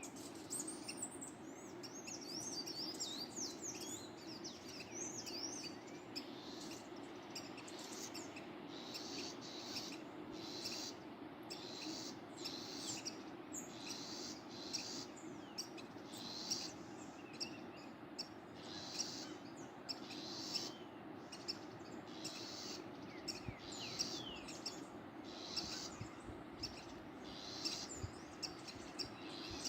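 Songbirds singing short, high, quickly repeated phrases, about one a second, over the steady rush of a waterfall.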